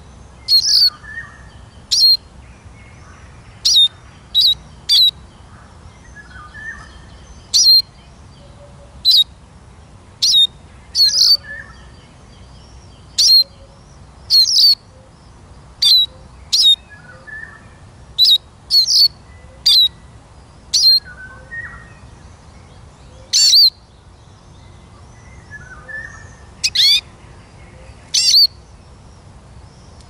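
Eurasian siskin calling: short, sharp, high chirps, some with a quick pitch slide, coming every second or so, with fainter, lower chirps in between.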